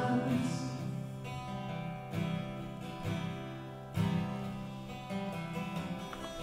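Acoustic guitar strummed softly, its chords ringing out, with a fresh strum about once a second.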